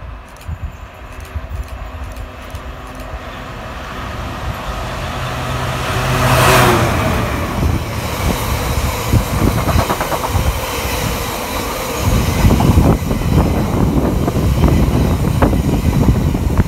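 Freight train approaching and passing close by. The locomotive's sound builds steadily to a peak about six and a half seconds in as it goes by. Then comes the continuous rumble and rhythmic wheel clatter of a long rake of open box wagons rolling past, loudest near the end.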